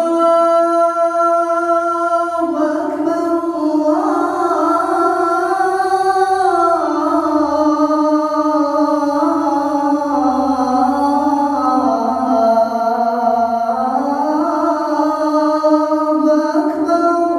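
A man's solo voice calling the adhan, the Islamic call to prayer, in the Gontor style. He sings one long ornamented phrase without a break, the pitch rising and falling in slow steps, and stops shortly before the end.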